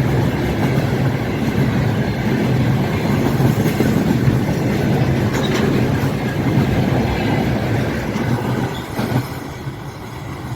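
Freight train wagons rolling past at speed, their wheels clattering over the rail joints in a steady heavy rumble that eases off near the end as the train goes by.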